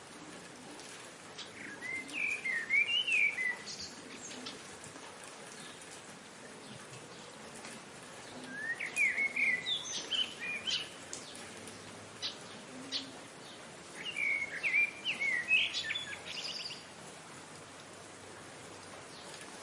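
A bird calling in three short bursts of rapid chirps, about six seconds apart, over the steady hiss of falling rain.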